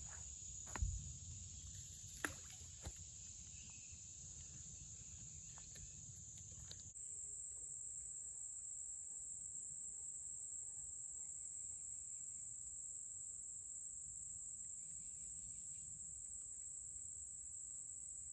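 Steady high-pitched drone of insects from the riverside woods. There are a few light knocks in the first three seconds, and about seven seconds in the drone steps slightly higher and carries on.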